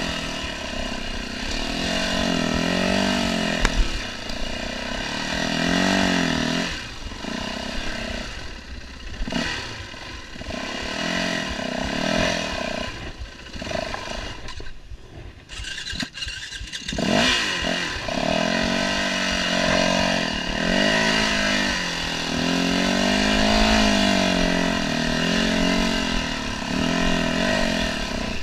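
Yamaha WR450F single-cylinder four-stroke dirt bike engine revving up and down in short swells of throttle as the bike crawls over rocks. The revs drop low about halfway through, then pick up again. There are a couple of sharp knocks about four seconds in.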